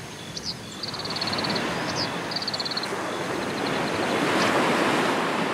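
Ocean surf: waves washing on a beach, the wash swelling to its loudest about four to five seconds in. Rapid high chirping trills sound over it during the first three seconds.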